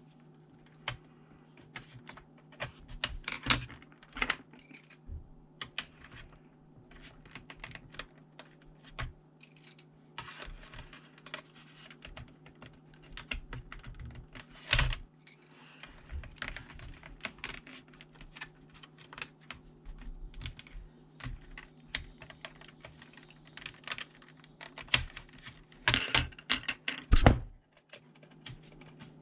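Irregular small clicks, taps and rattles of a ThinkPad T400 laptop's plastic and metal parts being handled during disassembly, with a few louder knocks about halfway through and near the end. A steady low hum runs underneath.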